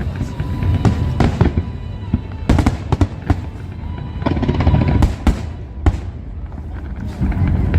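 Aerial fireworks display: many bangs and shell bursts in quick succession over a continuous low rumble.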